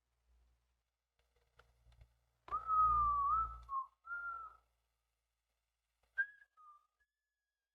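A person whistling a few notes: one held, wavering note, then a shorter one, and two brief notes near the end. A few faint clicks come before the whistling.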